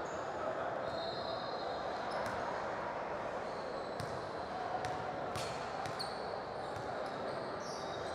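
Gym ambience during a basketball free throw: a steady murmur of voices from players and spectators, with a few sharp knocks of a basketball bounced on the hardwood floor and brief high squeaks of sneakers.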